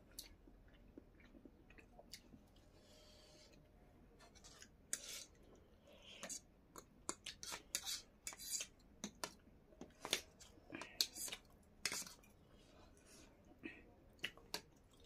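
Forks and spoons clicking and scraping against dinner plates, with chewing. The clicks come thick and fast between about five and thirteen seconds in.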